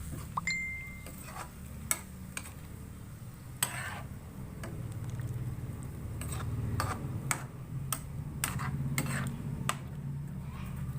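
Irregular sharp clicks and light taps from a pot of chicken curry cooking in its broth, over a steady low hum.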